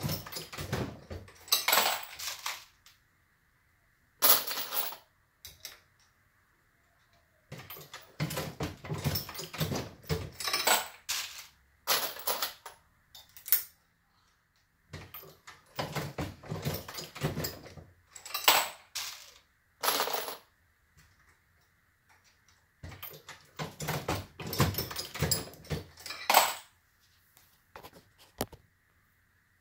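Dillon RL550B progressive reloading press being cycled by hand to load .223 cartridges: metallic clanks and clicks from the press stroke, with brass cases and bullets clinking. The sound comes in runs of a few seconds separated by short pauses, with fewer strokes near the end.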